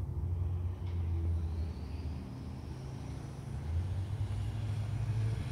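Low rumble of a motor vehicle running, with a faint whine that rises slowly in pitch over a few seconds.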